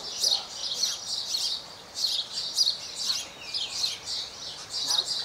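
Birds chirping: a dense run of short, high, quickly repeated notes, several a second.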